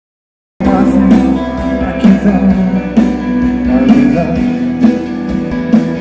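Live rock band playing through a large outdoor PA, with acoustic guitar and drums, cutting in abruptly about half a second in.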